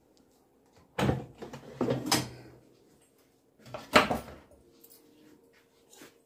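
Three clunks of objects being handled, about one, two and four seconds in, each with a short scrape or rattle after it.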